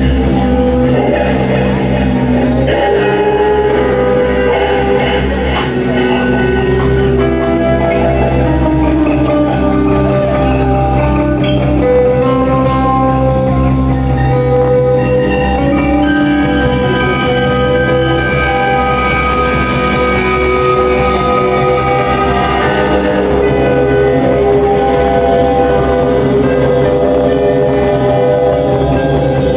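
A rock band's music: sustained guitar chords over a steady low note, with a melody of held notes moving above it.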